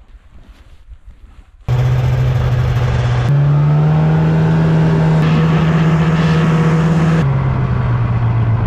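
After a quiet first second and a half, a snowmobile engine cuts in loud and runs steadily while riding over the snow. Its pitch steps up about three seconds in and drops back about seven seconds in.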